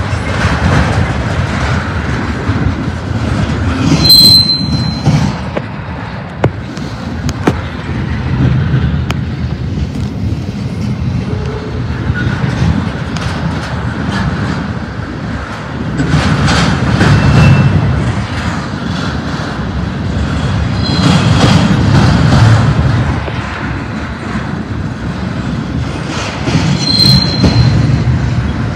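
Double-stack intermodal freight train's well cars rolling past: a steady rumble of steel wheels on rail that swells and eases every few seconds, with brief high wheel squeals about four seconds in and again near the end.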